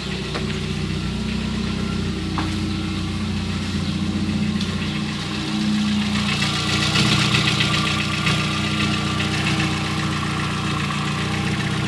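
Volkswagen Gol 1.0 8-valve four-cylinder engine idling warm, with an irregular light clacking in the background, as if something were loose inside the engine. The owner's guess is a piston pin knocking.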